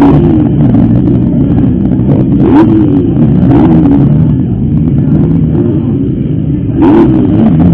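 Motocross motorcycle engines revving, the pitch repeatedly rising and falling as several bikes run at once. The sound is loud and continuous, with brief louder surges about a third of the way in and near the end.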